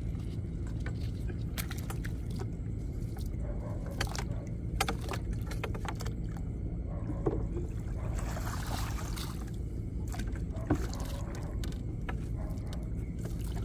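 A small fishing boat's engine running steadily, with scattered sharp knocks and a brief rush of noise about eight seconds in.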